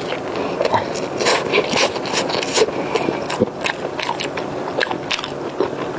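A person biting into and chewing a crispy fried breaded chicken cutlet, close to a clip-on microphone. Many short, sharp crunches follow one another all through.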